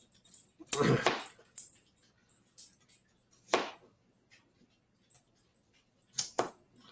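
Sharp kitchen knife slicing through raw potato and striking the cutting board, a handful of short cuts at irregular intervals.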